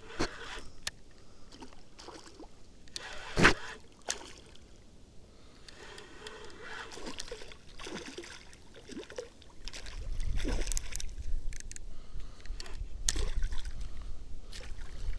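A hooked pike splashing and thrashing at the water surface as it is reeled in on a spinning rod, with scattered sloshes and a sharp knock about three and a half seconds in. A low rumble joins from about ten seconds in.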